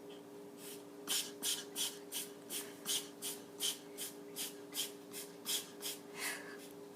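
An animal breathing in quick, noisy puffs, about three a second, which stop a little before the end, over a faint steady hum.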